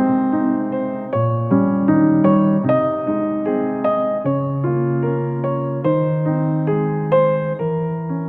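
Background piano music: a calm run of held chords and single notes, a new note struck about every half second.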